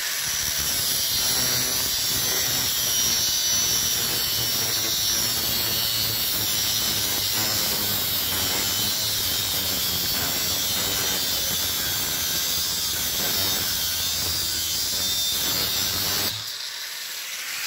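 Bosch GWS angle grinder with a cut-off disc cutting through a steel pipe held in a vise: a steady, loud grinding whine under load. It drops in level near the end as the cut finishes.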